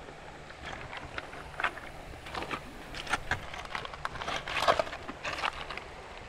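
Footsteps through tall grass and over loose river stones, with irregular rustling and crunching that is busiest in the second half.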